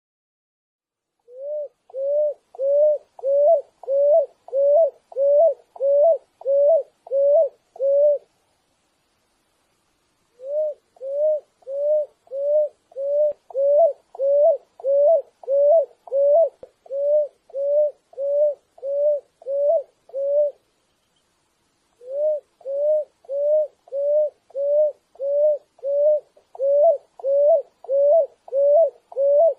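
Picui ground dove singing: a monotonous series of short, low cooing notes repeated evenly, a little under two a second. It sings three runs, with short pauses about eight seconds and about twenty seconds in.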